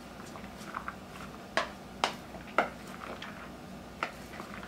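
Wooden spoon tossing salad in a mixing bowl: scattered sharp knocks and clacks of the spoon against the bowl, four of them louder than the rest.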